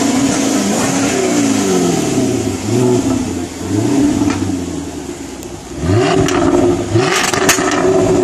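Jaguar F-Type R's supercharged V8 being blipped repeatedly at a standstill, the exhaust note rising and falling with each of about six revs. Near the end a rev lets off into a quick burst of pops and crackles from the exhaust on the overrun.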